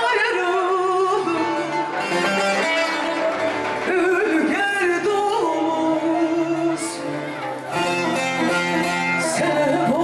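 Live Turkish music: a woman singing a wavering melody into a microphone over an amplified saz and sustained string-like accompaniment, played through PA speakers.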